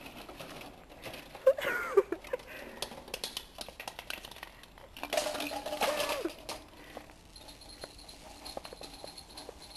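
Light clicking and rattling from handling, with two short rubbery squeaks that bend in pitch, about a second and a half in and again around five seconds in.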